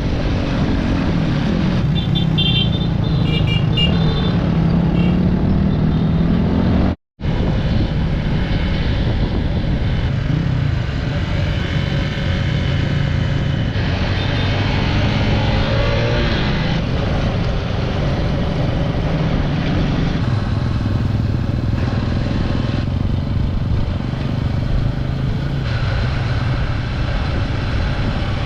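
Honda 150cc dirt bike engine running under way, its pitch rising and falling with the throttle, over a steady rush of road and wind noise. It cuts out for an instant about seven seconds in.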